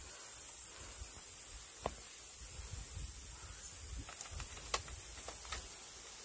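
A steady high-pitched insect drone, with a few short, sharp clicks and creaks of a slatted bamboo platform as a person shifts about on it and gets off. The sharpest click comes near five seconds in, and a smaller one about two seconds in.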